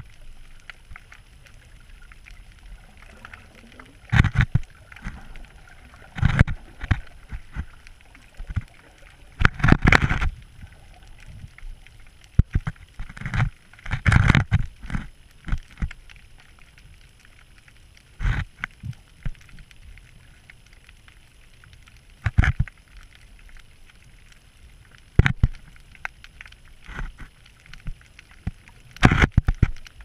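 Water sloshing and gurgling against an underwater camera just below the surface, in irregular surges every few seconds over a faint steady hiss.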